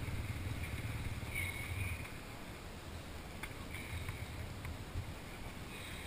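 Quiet outdoor background: a faint low rumble that fades about two seconds in, with a few faint clicks.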